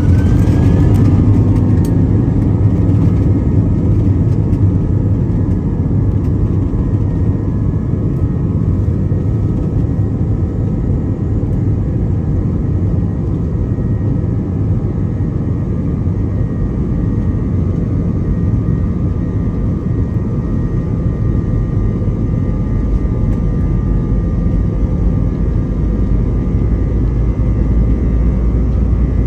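Jet airliner's engines heard from inside the cabin over the wing, spooling up with a rising whine in the first second to takeoff thrust. A steady loud engine drone and low rumble follow through the takeoff roll, and the rumble deepens near the end as speed builds.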